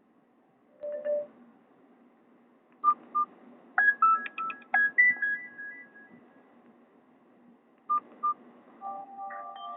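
Nokia 216 mobile phone playing Nokia 5630 XpressMusic ringtones through its small speaker. There are two short beeps, then a brief electronic ringtone melody of a couple of seconds. Two more beeps follow, and another ringtone tune starts near the end.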